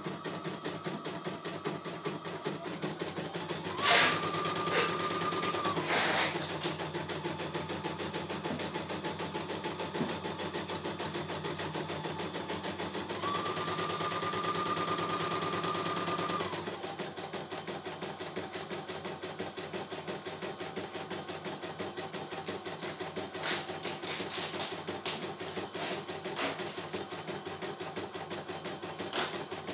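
CNY E900 computerized embroidery machine stitching out a design, its needle running in a fast, even rhythm. Twice a steady whine joins in for two to three seconds, and a few sharp clicks stand out over the stitching.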